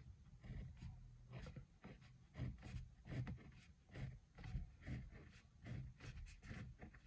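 Pen drawing on paper: faint, short, irregular scratching strokes as lines and small boxes are drawn.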